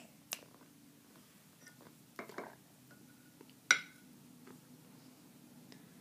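A metal spoon clinking and scraping against a dish while avocado is scooped up. There are a couple of light clicks at the start, a short scrape about two seconds in, and one loud ringing clink just before four seconds.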